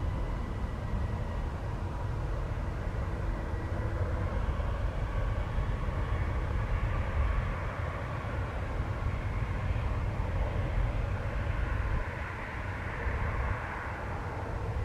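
Airbus A320-family twin-jet airliner landing and rolling out: a steady low jet-engine rumble, with a thin whine in the first few seconds.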